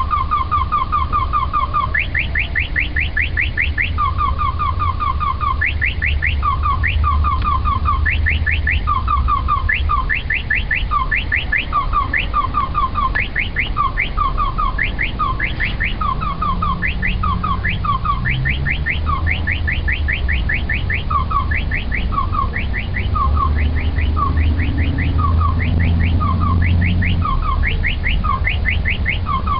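Car alarm sounding, cycling through fast, evenly repeated rising chirps and runs of short beeps.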